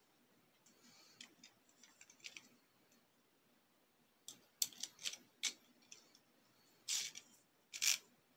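Hard plastic clicks and clacks of Beyblade tops and launchers being handled and reset for another launch. Faint ticks at first, then a run of sharp clicks from about halfway, the loudest near the end.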